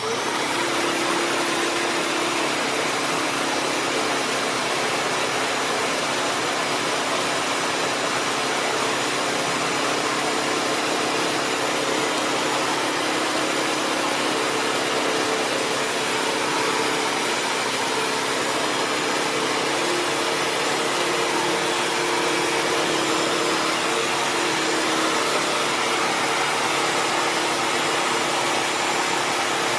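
Bissell CrossWave HydroSteam Pet wet-dry vacuum running steadily: a loud, even motor noise with a faint whine that wavers in pitch.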